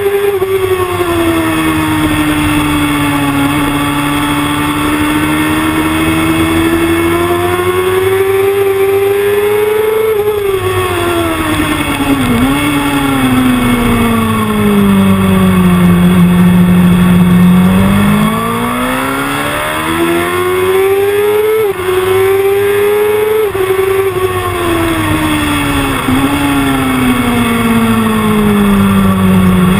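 Sports motorcycle engine at track speed, heard from a camera on the bike. Its note rises and falls with the throttle through the corners, broken by a few sharp dips at gear changes, over a steady rush of wind.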